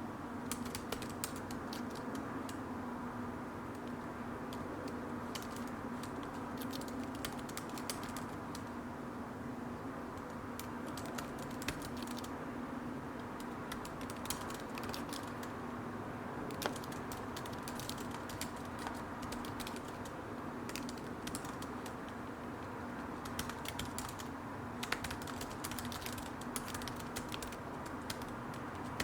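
Typing on a computer keyboard: runs of quick key clicks broken by short pauses, over a steady low background hum.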